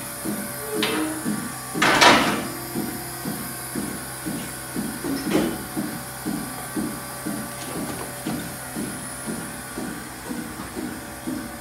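Milking parlor equipment pulsing steadily at about two and a half beats a second, with a loud knock about two seconds in and a smaller one a little after five seconds.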